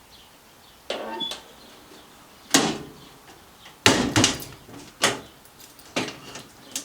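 Hinged metal guard door on a Boxford lathe being swung open and shut, with a series of sharp metallic clunks and rattles, the loudest about two and a half and four seconds in.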